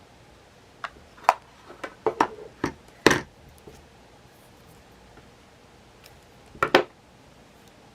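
Light clicks and knocks of small hard objects being handled and set down on a table: a quick run of them in the first half, the loudest about three seconds in, then a pause and a double knock near the end.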